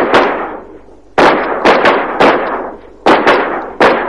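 Rifles fired in single shots by several shooters: about seven irregularly spaced cracks, each trailing off in a long echo.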